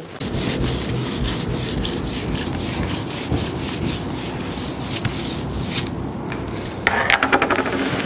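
A long rope shaken into waves across a tiled floor, swishing and rubbing along the tiles with many small slaps. About seven seconds in there is a brief, sharper run of clatters as the shaking ends.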